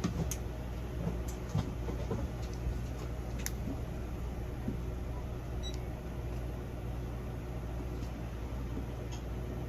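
Steady low mechanical hum of room equipment, with a few light clicks and taps, most of them in the first few seconds.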